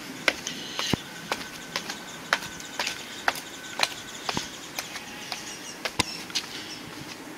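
Footsteps going down concrete steps, an even tread of about two steps a second.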